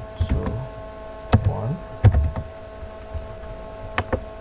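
A few separate keystrokes on a computer keyboard, over a steady electrical hum.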